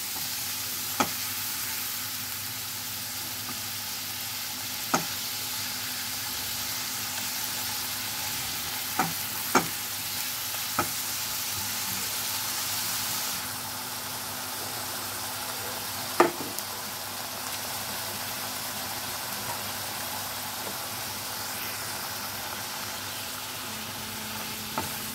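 Raw onion paste sizzling in oil in a non-stick kadai, stirred with a spatula that taps sharply against the pan a few times. It is fried slowly so the raw onion smell cooks off, and the sizzle eases a little about halfway through.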